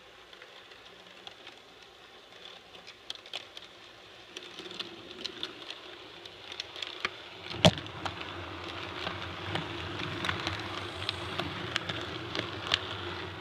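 HO scale model diesel locomotive running toward the track-level camera: a buzzing motor hum and a patter of small rattling clicks that grow steadily louder as it nears, with one sharp click just past the middle.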